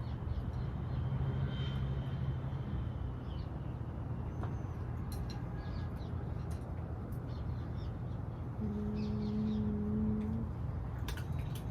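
Outdoor ambience: a steady low hum, with a held tone lasting about two seconds near the end. Scattered small clicks and faint bird chirps sit over it.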